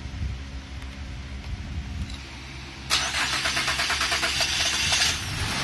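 A Mazda CX-9's V6 being started after an engine swap. About three seconds in, the starter cranks with rapid, even pulses, and near the end the engine catches and settles into steady running.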